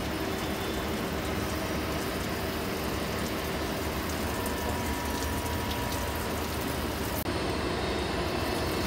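CNC lathe running with through-tool coolant spraying from the tip of a Kennametal HTS drill: a steady rush of coolant over a machine hum. About seven seconds in the spray's high hiss thins.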